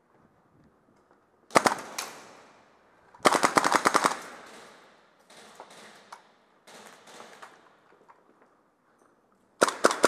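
Airsoft rifles firing rapid bursts of sharp clacks. There is a short loud burst about a second and a half in, a longer loud burst around three seconds, fainter bursts in the middle, and another loud burst near the end.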